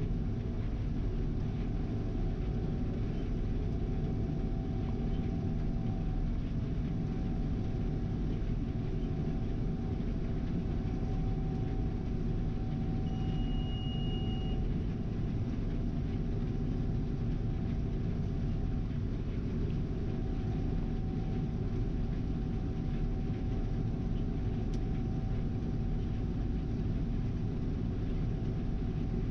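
Steady drone of a farm vehicle's engine running, heard from the cab, with a brief high beep about thirteen seconds in.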